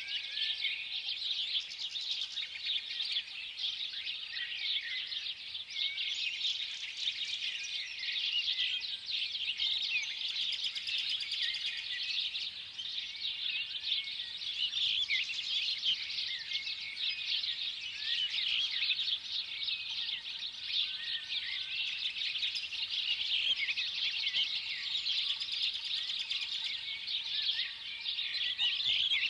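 A flock of small birds chirping without pause, many short overlapping high chirps and twitters forming a dense, steady chorus.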